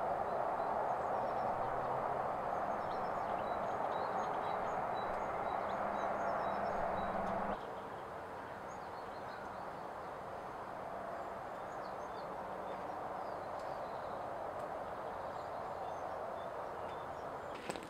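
Birds chirping faintly over a steady rushing background noise. The noise drops abruptly to a lower level about seven and a half seconds in.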